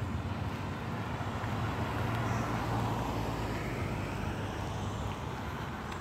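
Road traffic: a vehicle passing, its noise swelling about two to three seconds in, over a steady low hum.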